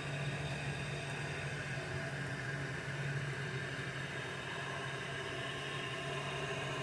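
Toilet cistern filling through its fill valve: a steady rush of water with a steady low hum.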